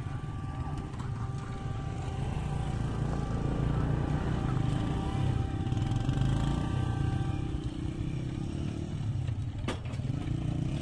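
Engine rumble at a level crossing: a motorcycle idling close by while a diesel locomotive approaches. Faint steady horn notes from the locomotive run until about two-thirds of the way through.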